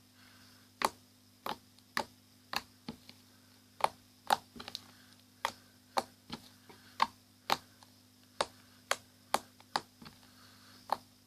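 Borax slime being squeezed and poked by hand, giving an irregular string of sharp clicks and pops, one or two a second.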